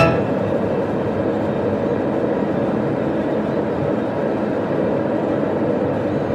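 Steady road noise of a car driving at speed, heard from inside the cabin: an even rumble of tyres and engine.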